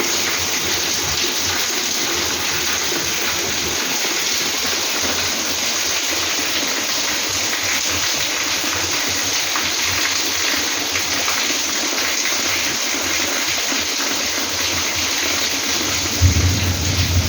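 Heavy rain falling, a steady dense hiss. About a second before the end, a low rumble comes in under it.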